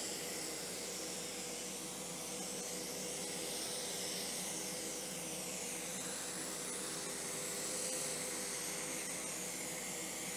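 Aerosol can of 3M Super 77 spray adhesive spraying in one long steady hiss as it is swept over carpet, coating it with glue. A faint steady hum runs underneath.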